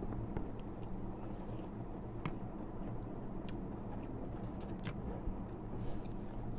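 Quiet eating sounds: a handful of light clicks of metal forks and spoons against ceramic bowls, and a soft noodle slurp near the end, over a steady low background hum.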